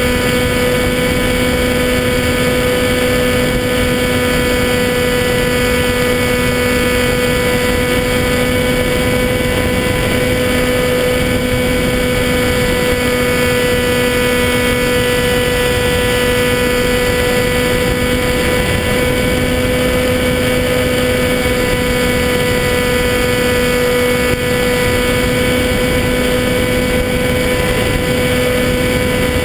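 Electric motor and propeller of a Skywalker 1880 RC plane, heard from on board in flight: a steady whine that holds one pitch throughout, over rushing wind noise.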